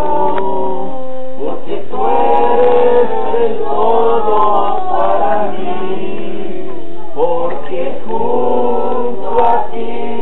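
A group of people singing a Christian praise song together, their voices holding long notes that slide between pitches.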